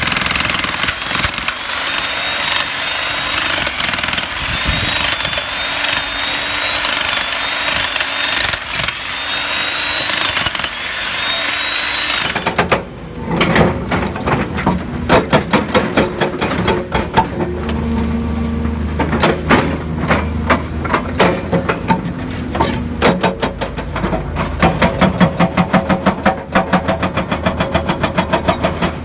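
Bosch electric demolition hammer breaking into rocky ground with rapid, continuous hammering. About thirteen seconds in this gives way to an excavator-mounted hydraulic breaker striking the trench bottom several times a second, over the excavator's steady engine hum.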